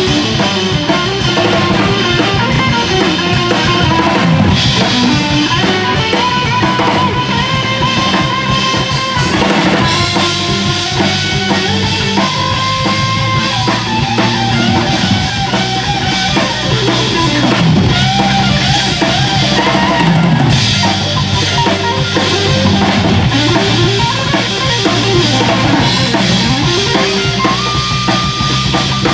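Jazz band playing: a drum kit with snare and bass drum to the fore, under bass and a lead line of long held notes that slide between pitches.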